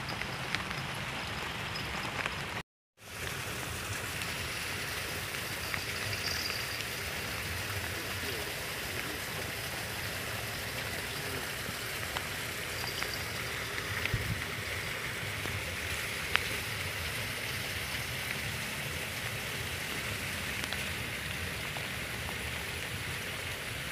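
Steady rain falling, a continuous even hiss with a few faint taps. The sound cuts out completely for a moment just under three seconds in.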